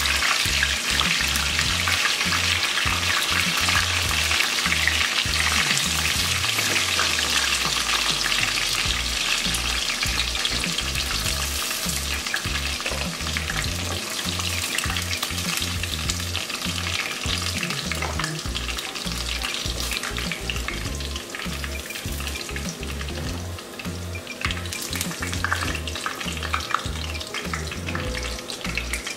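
Battered chicken pieces sizzling in hot cooking oil in a pot, with a slotted spoon stirring and lifting them out and an occasional knock against the pot. The sizzle thins out in the second half as fewer pieces remain in the oil.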